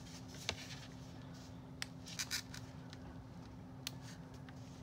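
Light handling noise of doll clothes and plastic packaging: a few sharp clicks and a short crackly cluster about two seconds in, over a faint steady hum.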